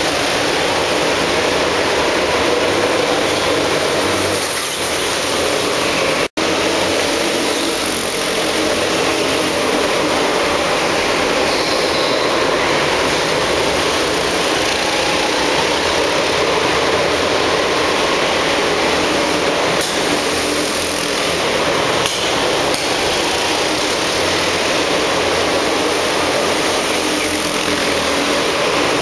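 Go-kart engines running and revving in an indoor karting hall, a steady echoing mechanical din with karts coming and going. The sound cuts out for an instant about six seconds in.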